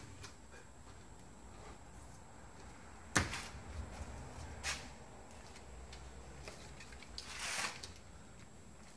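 Hand and tool handling noise while a bus door window is worked out of its stiff rubber seal: a sharp knock about three seconds in, a lighter one a second and a half later, and a brief scraping rustle near the end.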